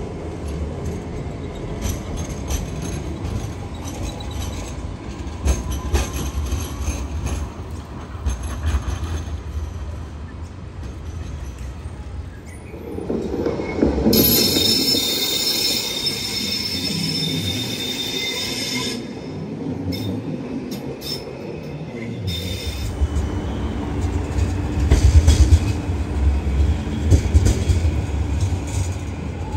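Alstom light rail trams rolling past on street track, with a low rumble of wheels and running gear throughout. In the middle comes a high, steady wheel squeal lasting about five seconds.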